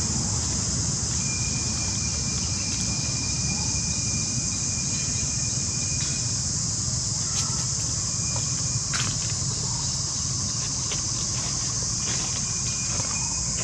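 Steady high-pitched drone of an insect chorus, over a low background rumble, with a few short clicks and rustles.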